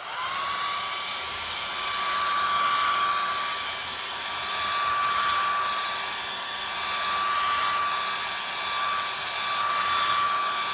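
Handheld blow dryer switched on, its motor whine rising quickly to a steady high pitch over the rush of air. The loudness slowly swells and eases as the dryer is moved about.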